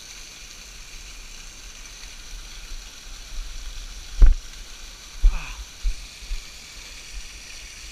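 Steady hiss of a jungle creek's rushing water and waterfalls, with faint steady high tones over it. A few sudden low thumps come about halfway through, the first the loudest.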